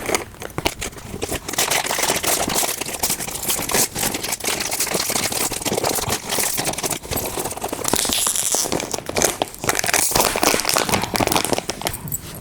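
Packaging being handled and unwrapped by hand: continuous irregular crinkling and crackling with many small rustles and clicks.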